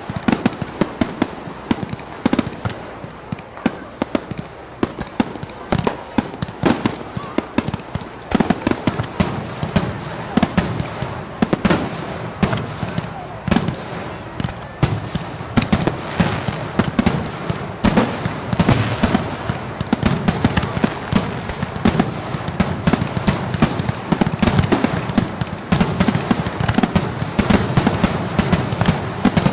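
Firework show: a dense, unbroken barrage of shells bursting, many sharp bangs every second over continuous crackling.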